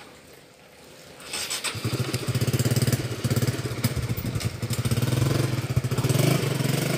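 A small engine grows louder about one and a half seconds in, then runs steadily with a rapid, even pulse.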